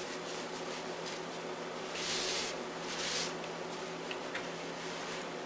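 Two brief, soft scraping sounds about two and three seconds in, from hands working at the kitchen counter, over a steady electrical hum.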